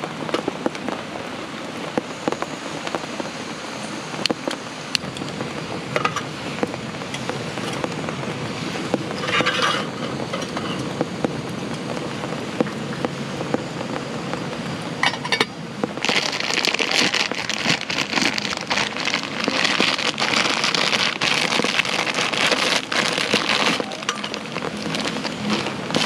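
Heavy rain falling steadily, with light metallic clinks of a stainless cooking pot and its lid on a camp table. The hiss and crackle grow louder about two-thirds of the way in.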